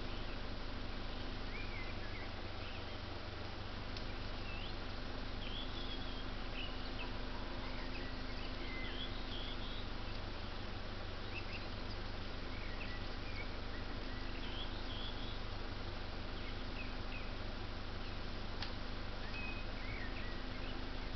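Small wild birds calling in short, scattered chirps and quick gliding notes over a steady low hum, with a single sharp click near the end.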